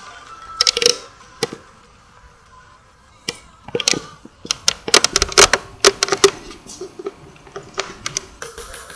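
A string of sharp, irregular clicks and knocks: a few at first, a quiet stretch after about a second and a half, then a dense run in the middle and scattered ones near the end.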